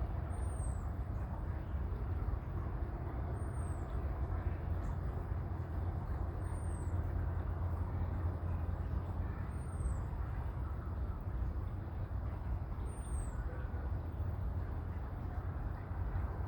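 Steady low outdoor background rumble, with a faint, short, high chirp that sweeps downward and repeats about every three seconds.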